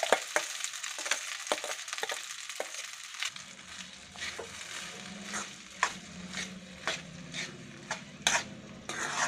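A spoon stirring cooked vermicelli in a steel kadai, scraping and clicking against the pan again and again, over a soft sizzle from the hot tempering oil that fades after about three seconds. A low steady hum starts about three seconds in.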